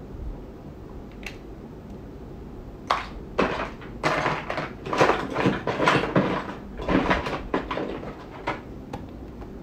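A run of irregular rustling and knocking handling noises, objects being picked up and moved around, starting about three seconds in and lasting several seconds.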